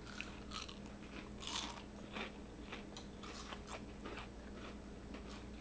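Someone biting into and chewing oven-baked onion rings: a faint series of irregular crisp crunches, the loudest about one and a half seconds in.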